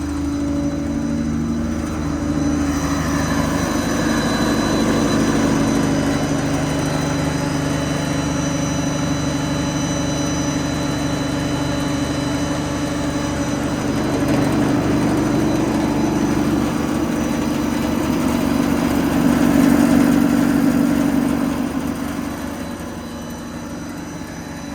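Ford 6.7 L Power Stroke V8 diesel running with the PTO-driven hydraulic air compressor engaged. It gets louder about two seconds in, is loudest near the end, then drops back.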